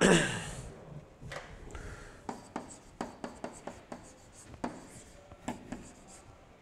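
Pen strokes tapping and rubbing on an interactive whiteboard while a word is handwritten: a string of short separate strokes. A brief louder noise that falls in pitch comes right at the start.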